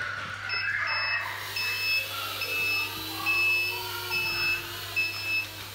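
Reversing alarm from the sound module of a 1/14-scale RC Mercedes-Benz 8x8 tractor truck: an electronic beep repeating a little faster than once a second while the truck backs up, over a faint, slowly rising whine.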